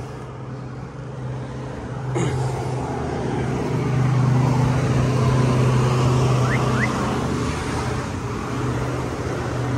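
Steady low hum of a nearby vehicle with road-traffic noise, growing louder a few seconds in. A single sharp click about two seconds in.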